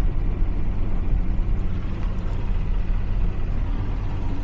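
Checkmate speedboat's engine running steadily at low speed, a deep, even engine note with water and wind hiss over it.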